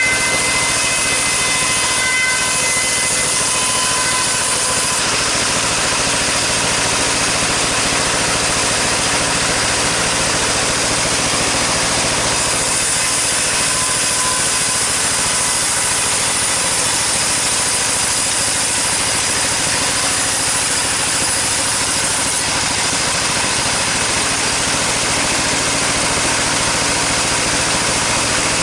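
Sawmill saw running steadily and cutting through long sengon timber, with the machine's motor humming underneath. The cut sounds a little brighter and harsher early on and again from about 12 to 22 seconds in.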